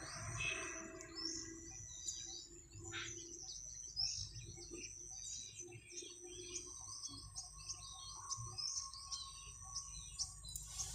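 Small birds chirping over and over, short high notes that sweep downward, several a second.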